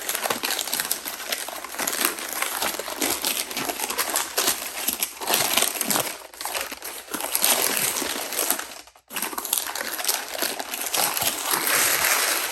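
Paper being crumpled and crinkled as it is unwrapped from a film camera, a dense run of crackling with a short pause about nine seconds in.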